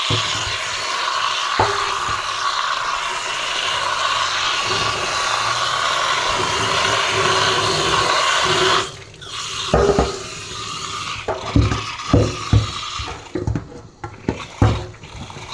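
Tap water running onto a nonstick wok in a stainless-steel sink as it is rinsed. About nine seconds in the rush of water drops away, and the pan knocks and clatters against the sink as it is turned and scrubbed.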